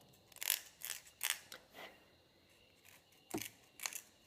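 A small knife blade scraping and carving out a finger hole in a dry nứa bamboo flute tube: four quick short scrapes in the first two seconds, then two sharper clicks a little after the three-second mark.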